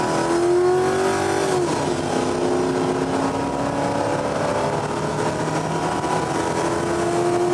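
CB radio on single sideband receiving band static, with several steady whistling tones from carriers on the channel sounding together. The whistles shift in pitch about two seconds in.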